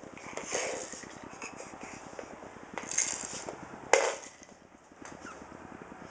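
Baby crawling on a hardwood floor, hands slapping and knocking on the boards, with the sharpest and loudest knock about four seconds in.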